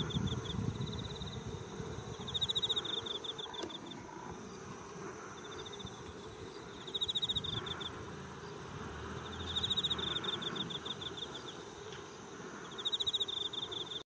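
Insect singing in short, high-pitched buzzy trills made of rapid pulses, each lasting under a second and repeated every two or three seconds.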